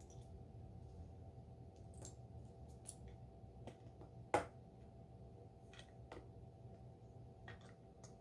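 Plastic Lego bricks being handled and pressed together: scattered small clicks, with one louder snap about four seconds in.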